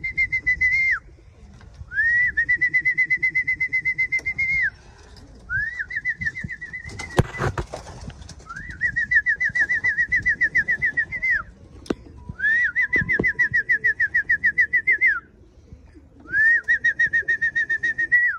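Trilled whistle calls near one pitch, each held about two to three seconds after a quick upward start, repeated six times at a steady pace: a fancier calling a returning racing pigeon down to the loft. A sharp knock sounds about seven seconds in.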